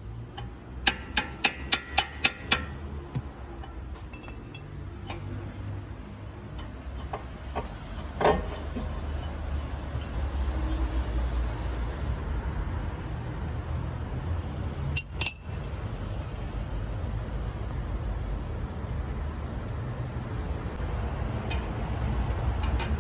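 Sharp metallic clicks and taps from tools working on a car's rear brake: a quick run of about seven clicks near the start, a single knock around a third of the way in, and a short burst of clinks later, over a steady low rumble.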